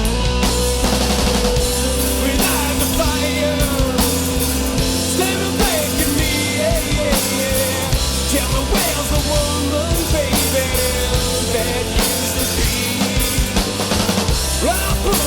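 Instrumental break of a rock song: a band with a full drum kit and a melodic lead line that glides and bends up and down in pitch, no vocals.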